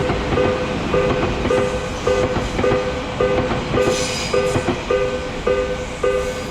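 Japanese railroad crossing alarm ringing: a short two-pitch electronic ding repeating just under twice a second, over the steady rumble of a passing train.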